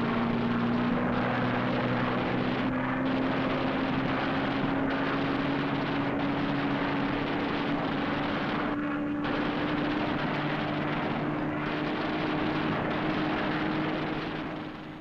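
Propeller fighter plane's piston engine running hard, its drone rising slowly in pitch over a dense rushing noise. The rush briefly thins out a few times.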